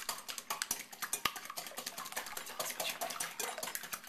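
Quick, irregular small clicks and crackles from hands handling kitchen things over a glass mixing bowl, with one sharper knock about a second in.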